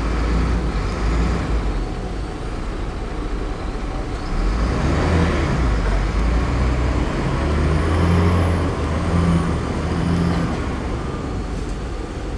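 Heavy diesel earthmoving machinery running: a bulldozer and dump truck engines rumbling, getting louder about four seconds in and peaking around the middle before easing off.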